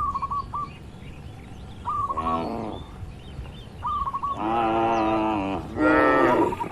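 Cattle mooing in a pen, three calls: a short one about two seconds in, then two longer ones back to back near the end, the last the loudest. A bird's quick run of short high chirps repeats about every two seconds.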